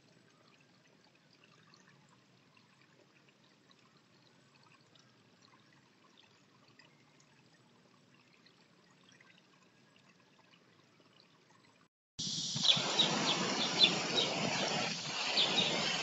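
Near silence, then about twelve seconds in a sudden jump to a loud, steady rushing noise with short, high chirps of sparrows at a birdbath.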